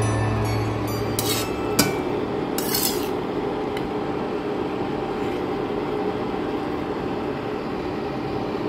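Vegetables stir-frying in a stainless-steel wok: a few scrapes and clinks of a utensil against the pan in the first three seconds, then a steady frying sizzle.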